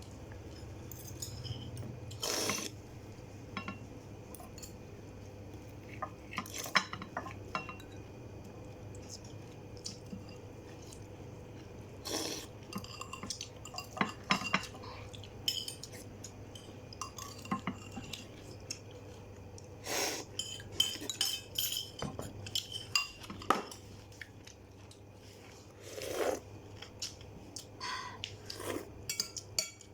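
Cutlery clinking and scraping against dishes while eating: irregular sharp clinks, some in quick clusters, over a steady low hum.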